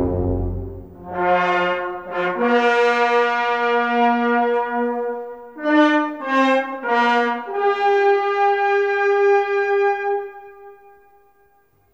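Concert band brass section playing a series of long held chords that change pitch several times. The last chord fades away near the end.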